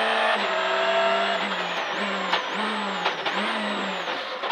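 Peugeot 206 WRC rally car's turbocharged four-cylinder engine heard from inside the cockpit, slowing for a right hairpin. The engine note drops about half a second in, then rises and falls in three short blips in the second half, with a few sharp clicks among them.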